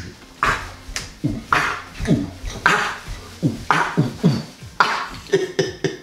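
A rhythmic percussive beat of about two hits a second. Each hit has a short low tone that drops quickly in pitch, topped with a hissy snap.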